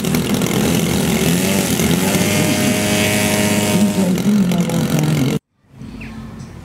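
Model aircraft engine running loud as the plane flies past, its pitch wavering up and down. It cuts off abruptly about five seconds in, and a quieter steady hum follows.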